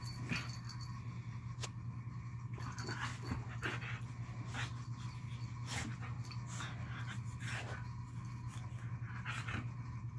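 Husky-type dog panting and huffing in rough play with a kitten, with irregular scuffles and sharp clicks from paws and bodies on the carpet.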